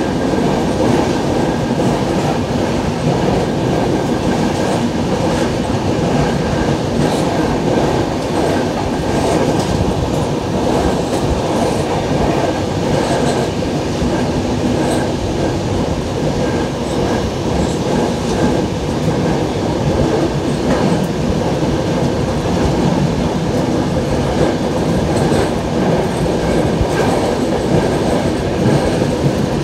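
LHB passenger coaches running on the track: a steady rumble of wheels on rail, with scattered faint clicks from the rail.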